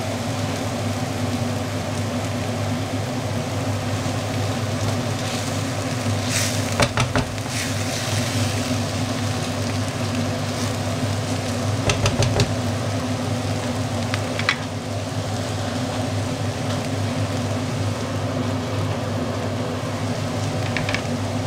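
Chopped eggplant and onion sizzling as they fry in a pan, stirred with a wooden spatula, over a steady low hum. Knocks of the spatula against the pan about a third of the way in, and again a little past halfway.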